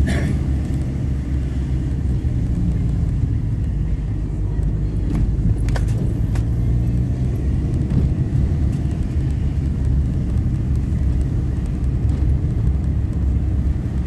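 Steady low rumble of a car's engine and tyres heard from inside the cabin while driving slowly, with a few faint clicks about five to six seconds in.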